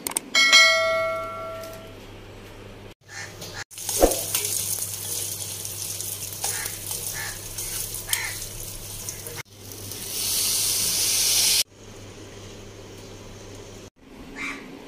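A ringing strike about half a second in, its several tones dying away over about a second and a half. Then comes a steady rushing hiss in short stretches that start and stop abruptly, the last one growing louder before it cuts off.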